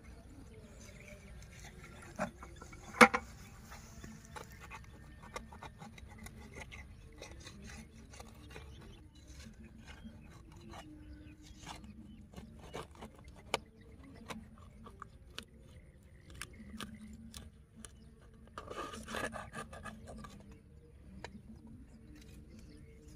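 Scraping and rustling of dry soil and straw stubble being worked at a burrow, with scattered sharp clicks. One click about three seconds in is much louder than the rest, and a short burst of scraping comes near the end.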